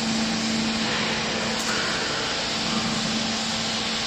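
Vertical downstroke hydraulic baler's motor and hydraulic pump running steadily: a constant low hum over an even mechanical noise.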